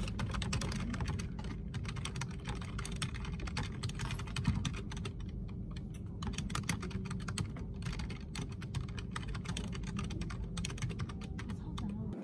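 Fast typing on a low-profile computer keyboard: a rapid, uneven run of key clicks that thins out briefly about five seconds in, over a steady low hum.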